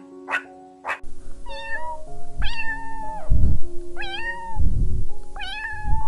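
A kitten meowing four times, each meow rising and then falling, over background music, with two low rumbles near the middle. In the first second, a few short sharp calls about two a second cut off abruptly.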